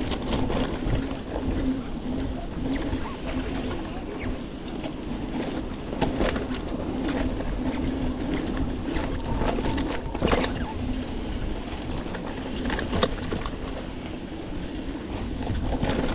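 1994 Specialized Stumpjumper FSR rolling fast down a dirt trail, heard from the bike itself: a steady tyre rumble on the dirt with occasional sharp clacks and rattles from the frame and drivetrain over bumps.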